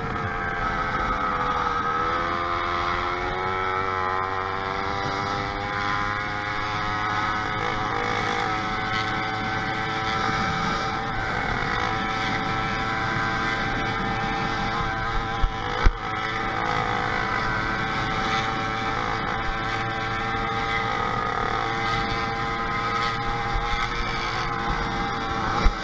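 Motorized bicycle's small engine running while riding, its pitch dipping about two seconds in and then climbing gradually as the bike picks up speed. A couple of sharp knocks sound about two-thirds of the way through, and one more near the end.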